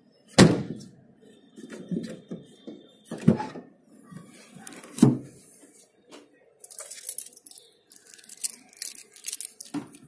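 Sharp clunks from a Maruti Celerio's tailgate latch and loose inner trim panel as the newly fitted handle is worked and the tailgate opened, four knocks in all, with keys jangling in the second half.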